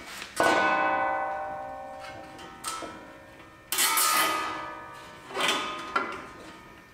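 Metal struck hard twice, about three seconds apart, each knock ringing out with a bell-like tone that fades over a couple of seconds, with a few lighter metallic taps between.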